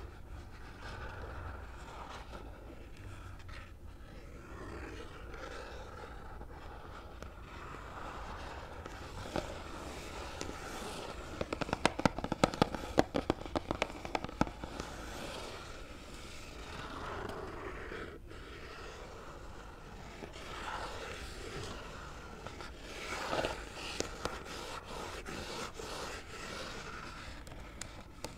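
Fingernails scratching across a phone-case package, with a quick run of sharp nail taps about halfway through and a shorter burst of taps near the end.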